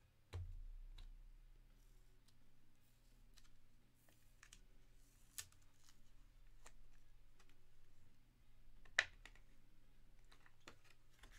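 Faint clicks and taps of a rigid clear plastic card holder being handled and pried open by hand, scattered irregularly, with one sharper click about nine seconds in, over a faint steady hum.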